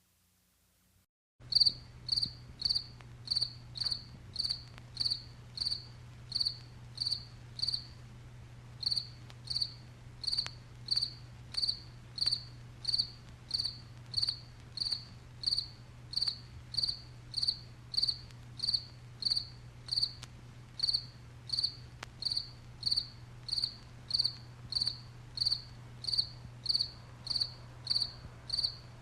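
Cricket chirping: short high-pitched chirps repeating evenly at about two a second, starting about a second and a half in, with one brief pause. A steady low hum runs underneath.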